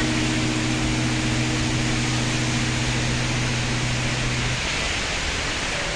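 Steady, even rush of falling water from the Rain Vortex, a tall indoor waterfall. A held music chord sounds over it and stops about four and a half seconds in.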